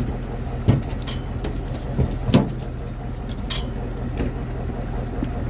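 Fishing boat's engine running with a steady low hum, broken by a few short knocks and clicks.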